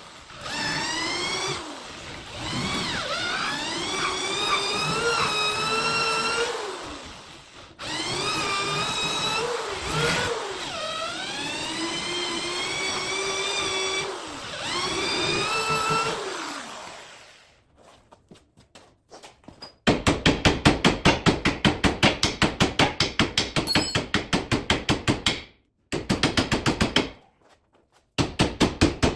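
Electric power tool motor running in several long runs, its pitch rising and falling as the load changes. Then, from about two-thirds of the way in, bursts of rapid, evenly spaced hammering strikes, about six a second.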